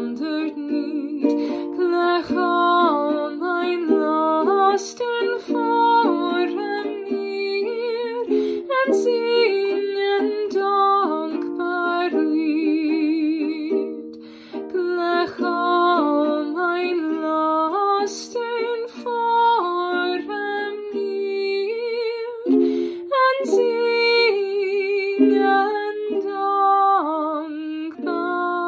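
Ukulele strummed in chords, with a woman's voice carrying a hymn melody over it, wavering with vibrato and without clear words. Both drop away briefly about fourteen seconds in.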